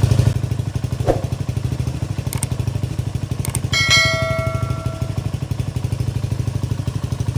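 Motorcycle with a replica Akrapovic slip-on exhaust idling steadily with an even, rapid exhaust pulse, reading about 89 to 90 decibels on a meter. A brief tone sounds over it about four seconds in.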